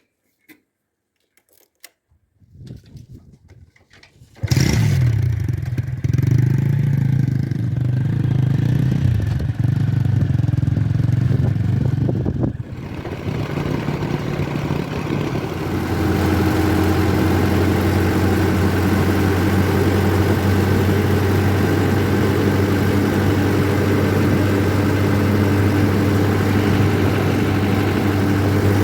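A few faint clicks, then about four seconds in a heavy diesel engine comes in suddenly and runs steadily, settling into an even drone later on.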